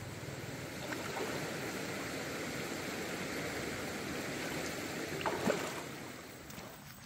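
Steady rushing noise like flowing stream water, with a brief louder sound about five seconds in; it fades toward the end.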